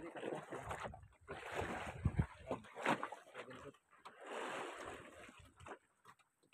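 Sea water sloshing and splashing against a fishing boat's hull, in two washes of about a second each, with scattered light knocks.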